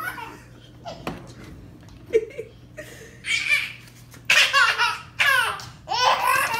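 A baby laughing in several short bouts of high-pitched laughter, starting about three seconds in. A short knock comes about two seconds in.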